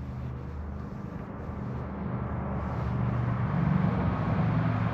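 A low, steady engine drone that grows louder over the first few seconds, then holds.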